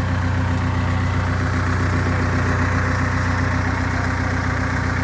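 An engine idling steadily at an even, unchanging speed.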